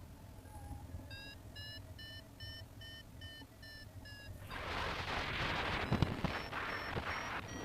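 Paragliding variometer beeping in a steady run, about two and a half beeps a second, the sign that the glider is climbing in lift. About halfway through, wind rushing over the microphone comes up loud over the beeps.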